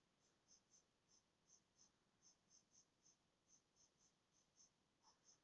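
Near silence, with faint short clicks of a computer mouse, irregular, about two or three a second, as supports are placed one by one in slicing software.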